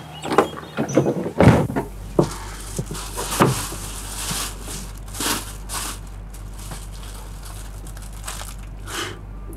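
Plastic carrier bags rustling and crinkling as they are handled and rummaged through, over a steady low hum. A few louder knocks come in the first couple of seconds.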